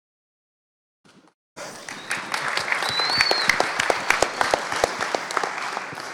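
Audience applauding: many hand claps start about a second and a half in and fade out near the end. A brief high whistle-like tone sounds partway through.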